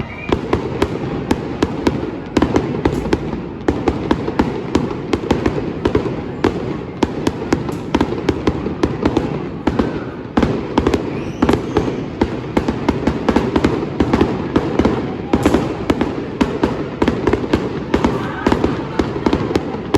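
Fireworks going off in a dense, continuous barrage of rapid bangs and crackles, many reports a second with hardly a gap.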